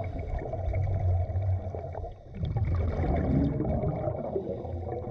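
Muffled underwater rumble and gurgling heard through a submerged camera, with the bubbling of a scuba diver's exhaled air; the sound dips briefly about two seconds in.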